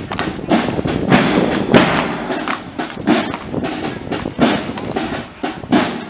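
A marching scout drum band playing, with snare drums and a bass drum beating out a march as they walk. There are loud, repeated drum strikes.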